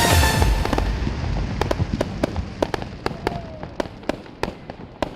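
Fireworks going off in a scattered string of sharp cracks and pops, about fifteen in three and a half seconds, growing fainter, as the accompanying music fades out in the first second.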